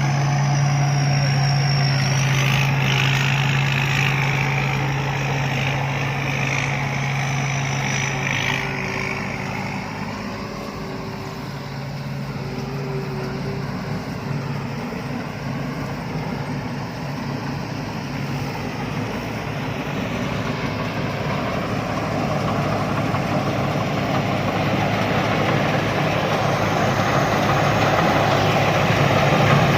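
Rice combine harvester running steadily in the field, a low engine drone under the clatter of its machinery. It fades somewhat in the middle and grows louder again toward the end.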